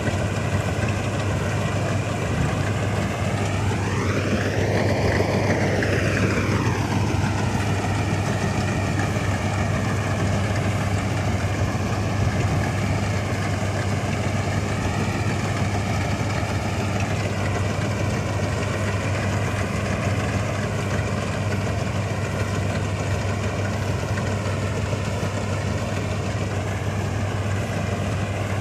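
Vintage Köla Combi Special combine harvester running steadily, a low engine hum with higher whirring from its machinery. About four to six seconds in, the pitch rises and falls once.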